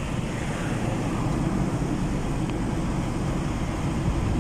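Steady low rumble of a car's engine and tyres, heard from inside the cabin as the car creeps along in slow traffic.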